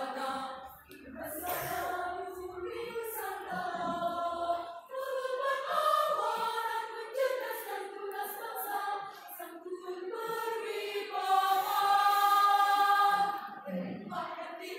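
Women's choir singing together, with a long held note near the end that is the loudest part.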